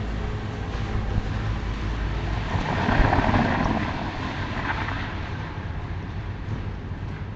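A car passing by: its noise swells to a peak about three seconds in and fades away, over a steady low rumble.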